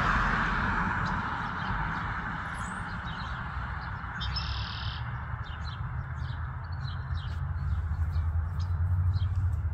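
Many short, high bird chirps in quick succession from about two seconds in, with one slightly longer note about four seconds in, over a steady low background rumble that fades over the first two seconds.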